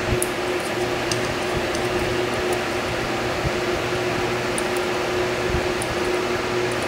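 Steady fan hum with a constant low tone underneath, unchanging throughout. A few faint small ticks are scattered through it.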